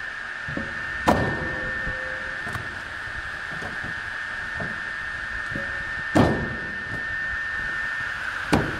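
Homemade belt-driven firewood circular saw running, its electric motor, belt and blade giving a steady high whine. Three sharp knocks stand out: about a second in, about six seconds in, and near the end.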